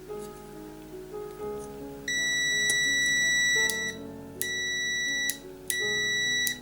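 Multimeter continuity buzzer beeping three times, a long steady tone of about a second and a half, then two shorter ones, as the probes find a good connection across the fan heater switch's contacts. Background music plays underneath.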